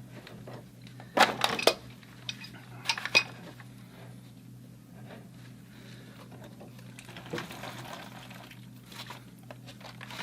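Metal hand tools clinking and clanking as they are handled, in two short clusters of sharp clinks about a second and three seconds in, with a few fainter knocks later, over a low steady hum.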